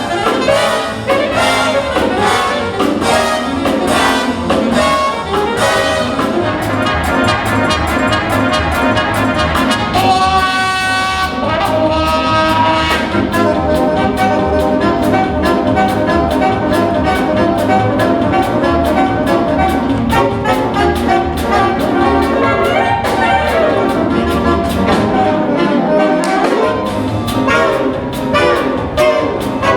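Big-band jazz orchestra playing a swinging instrumental, led by trumpets, trombones and saxophones over a steady beat.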